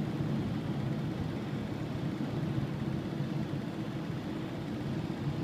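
Steady low rumble of engine and tyres inside a moving vehicle's cabin, on a wet road.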